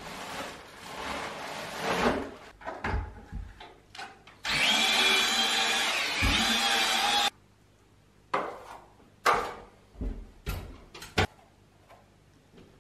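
Powdered drywall joint compound rustling as it is emptied from its bag into a plastic bucket. Then a cordless drill with a mixing paddle runs steadily for about three seconds, mixing the mud, and stops suddenly. A few separate knocks follow.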